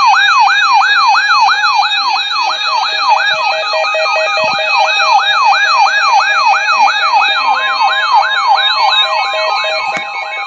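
Electronic emergency alert siren: a fast yelp that falls in pitch about three times a second over steady tones, with another steady tone joining in near the end. It introduces a severe thunderstorm warning.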